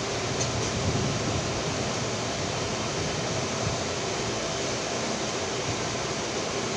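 Steady, even rushing background noise like moving air, with no clear events, only a couple of faint small knocks near the start.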